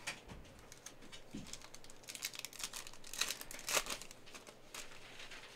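Foil wrapper of a Panini Prizm basketball card pack crinkling as it is torn open by hand: a quiet crackle that builds about two seconds in and fades near the end.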